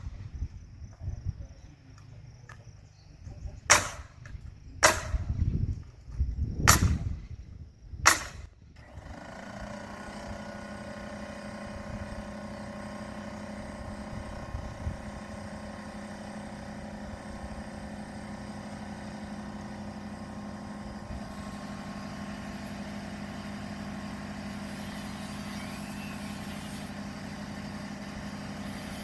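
Pneumatic framing nail gun firing: about five sharp shots, a second or two apart, over the first eight seconds. Then, about nine seconds in, a steady machine drone with a constant pitch starts and keeps going.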